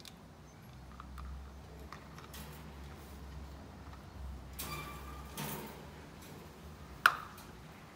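Umbrella cockatoo climbing in its wire cage: faint scrapes and clinks on the bars, then one sharp metallic ping about seven seconds in.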